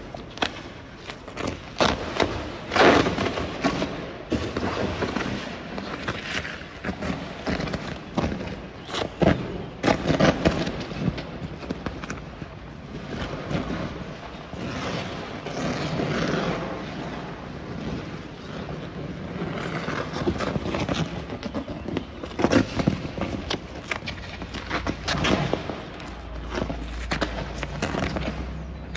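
Electrical arcing from detached overhead catenary wires shorting against a train's pantograph: irregular loud cracks and bangs, some in quick clusters, with gaps of a few seconds between bursts. The overhead line has broken and is short-circuiting, throwing off smoke and flames.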